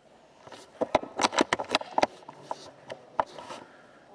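A quick flurry of sharp clicks and crackles close to the microphone, then a few single clicks: handling noise from the airsoft sniper rifle and its scope camera as the rifle is moved.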